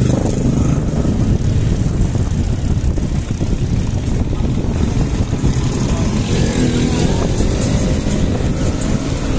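Steady low rumble of wind and tyre noise on a bicycle-mounted camera while riding on a paved street, with a motorcycle engine heard briefly about six and a half seconds in.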